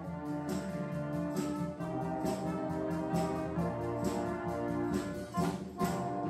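Student jazz big band playing: saxophones, trombones and trumpets sounding sustained chords, with sharp percussion strokes marking the beat.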